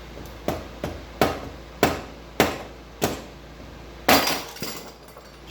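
Hammer blows on metal, about seven sharp strikes roughly half a second apart, the last and loudest one ringing on. They knock a stubborn, heated engine part loose on a Yamaha Wolverine 350 ATV.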